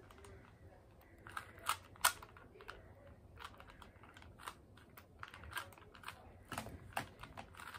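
Plastic Rubik's Cube being turned quickly by hand: irregular runs of sharp clicks and clacks as the layers snap round, while the daisy is built at the start of a beginner's solve.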